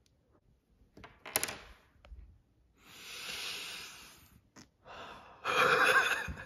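A short sharp burst about a second in, then a long sniffing inhale through the nose at cologne dabbed on the hand, then a louder burst of laughter near the end.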